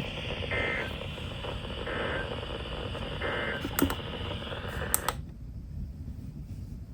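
NOAA Weather Radio end-of-message data bursts: three short two-tone SAME bursts about a second and a half apart over radio receiver hiss, closing the severe thunderstorm warning broadcast. The hiss cuts off abruptly about five seconds in.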